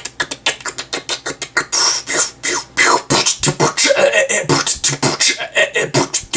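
A person beatboxing: a fast run of sharp mouth clicks and pops, with a few short pitched vocal sounds about four seconds in.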